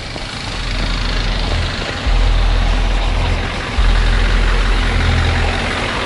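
Vehicle engine and road noise: a steady hiss with a deep rumble that jumps louder twice, about two and nearly four seconds in.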